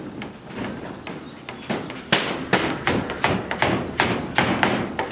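Hammer blows: a few softer knocks, then from about two seconds in a quick, steady run of sharp strikes, about two and a half a second.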